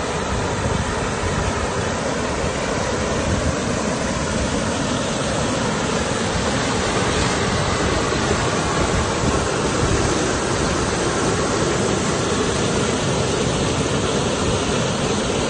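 Muddy floodwater rushing through rapids in a small river: a loud, steady rush of churning water.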